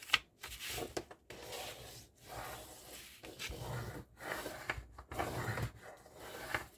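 Bone folder rubbed along a fold in a cardstock file folder to crease it, in a series of short strokes about one a second.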